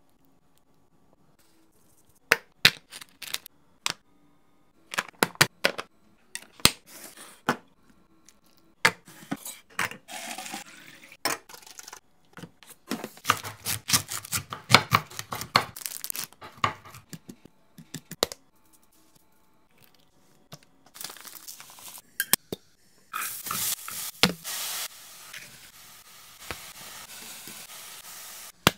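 Kitchen food-prep handling: a long string of sharp clicks and knocks from utensils and containers, with stretches of rustling and scraping, then a steady hiss over the last five or so seconds.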